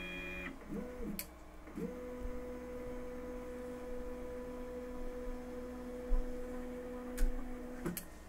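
Stepper motors of an Artillery Sidewinder X1 3D printer whining as the machine moves its print head into position. A higher multi-tone whine stops about half a second in and a short chirp follows. Then, from about two seconds in, a steady two-tone whine rises quickly to pitch as the Z motors lower the gantry toward the bed, and cuts off near the end.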